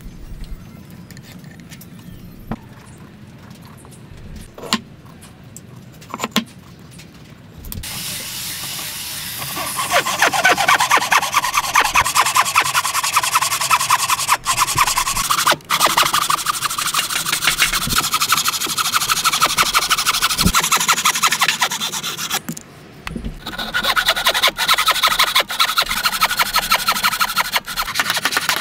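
A few light knocks, then a handsaw cutting through wood in fast, steady back-and-forth strokes from about eight seconds in: first a frame saw ripping a clamped timber, then, after a brief pause, a saw cutting into an angled joint piece.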